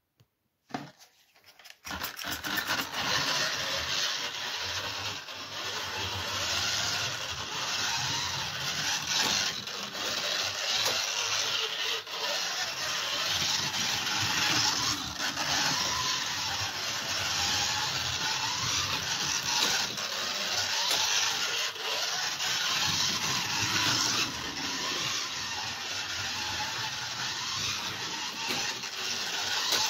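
Scalextric slot cars running on plastic track: small electric motors whining, rising and falling in pitch, with the cars rattling and scraping along the track. It starts about two seconds in.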